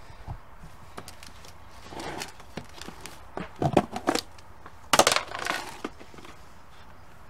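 A rigid plastic tub lid being prised open and lifted off: clusters of sharp plastic cracks, clicks and clatters, the loudest about four and five seconds in.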